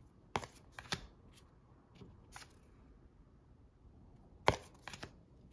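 Tarot cards being handled and swapped: a few sharp clicks and light taps of card stock, the loudest a little after the start and again about four and a half seconds in.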